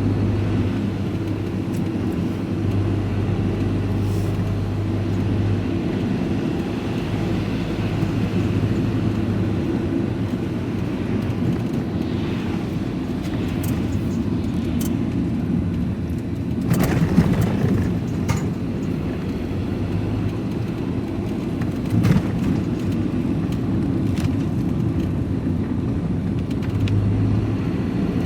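Steady engine drone and road noise heard from inside a moving vehicle's cab, with a couple of brief knocks or rattles, one about 17 seconds in and another about 22 seconds in.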